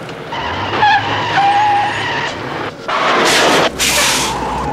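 Tyres squealing under hard braking: a wavering high squeal for about two seconds, then two loud bursts of skidding about three seconds in, over a low engine hum.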